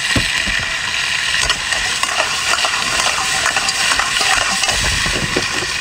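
Mixed seafood sizzling and frying in a hot steel wok as it is stirred with a metal spatula. Scattered clinks and scrapes of the spatula against the pan sound over the steady sizzle.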